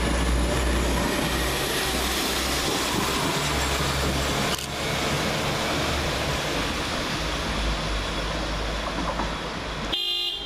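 Two coupled Class 172 Turbostar diesel multiple units pulling out of the station, engines and wheels running as the train draws away and slowly fades. A brief high chirp comes right at the end.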